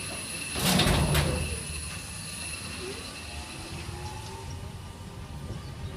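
A suspended ride car runs along its overhead steel rail. There is a loud clatter about a second in, then a steady rumble from the wheels with a faint, slowly rising whine.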